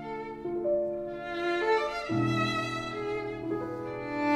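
Background music: a slow melody of long held notes, changing pitch about every second, over sustained low notes.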